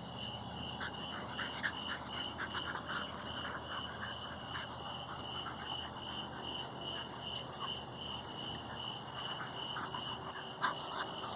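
Steady high-pitched chirping from an outdoor animal chorus, pulsing evenly about three times a second, with faint scattered rustles and clicks.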